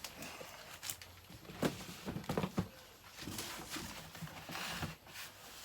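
Cardboard boxes and records being handled: several sharp knocks and taps, with rustling scrapes of packaging in between.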